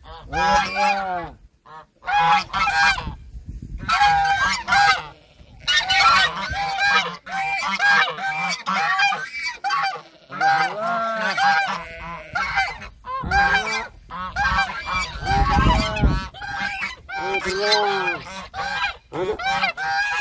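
Domestic geese honking over and over, call after call with only short gaps. A low rumble comes in about two-thirds of the way through.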